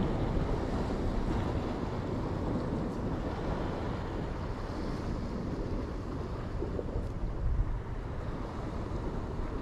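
Wind buffeting the microphone over the steady wash of sea waves against the rocks.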